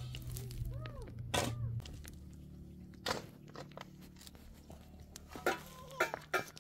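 Shovel digging into dry, stony earth: scraping with several sharp knocks as the blade strikes the ground, one about a second and a half in and a cluster near the end.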